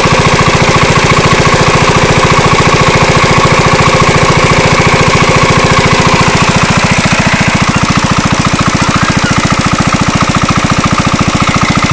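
Small engine running steadily at a constant speed, with a rapid, even chugging pulse.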